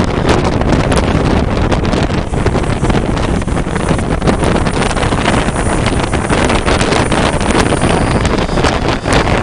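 Passenger train running along the line, a loud, steady rush of rolling noise, with wind buffeting the microphone in frequent crackles.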